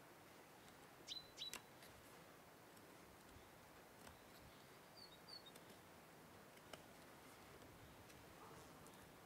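Near silence with faint high bird chirps in short pairs, one pair about a second in and another around five seconds in. A few faint ticks can be heard between them.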